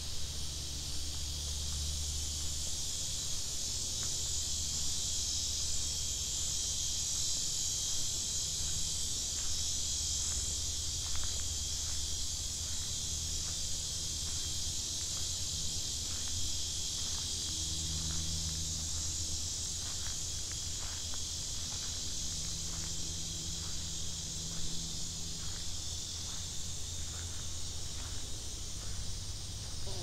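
Steady high-pitched insect chorus buzzing without a break, with faint footsteps on a path ticking along beneath it from about a quarter of the way in.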